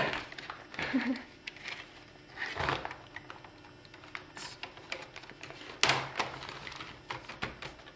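Plastic case of a Sony VAIO VPCYB13KX notebook clicking and knocking as its palmrest cover is pried and lifted off the base, its clips letting go. The clicks are scattered, with louder knocks about two and a half seconds in and again about six seconds in.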